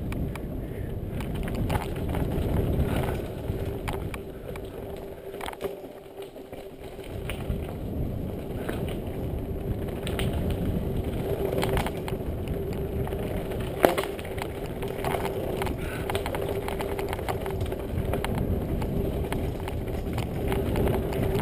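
Mountain bike descending a dirt singletrack, heard from a camera on the rider: tyres rumbling over the dirt and the bike rattling over bumps, with a steady hum underneath. There is a brief quieter stretch about six seconds in and a sharp knock about two-thirds of the way through.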